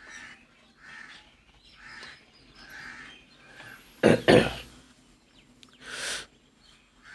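Crows cawing faintly about once a second. A loud cough comes about four seconds in, and a short breathy burst about six seconds in.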